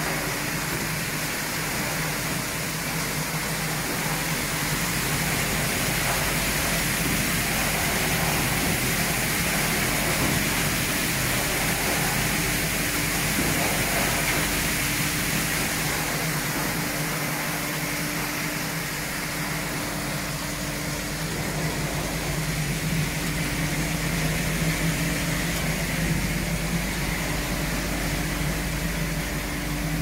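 Stainless-steel drum vegetable washing machine running: a steady machine hum under the hiss of water spraying from its nozzles into the drum.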